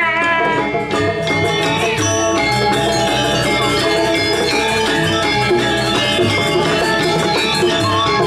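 Balinese gamelan playing dance music: bronze metallophones ringing in dense interlocking patterns over drums and cymbals, at a steady loud level.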